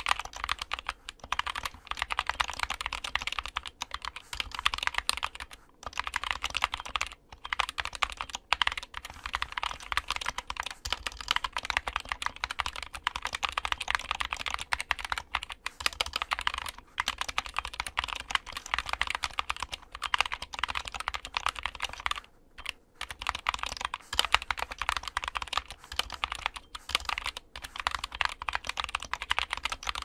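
Fast touch-typing on a mechanical keyboard fitted with partly lubed Gateron Optical Brown tactile switches, spring-swapped and filmed: a rapid, continuous stream of key clacks with a few brief pauses.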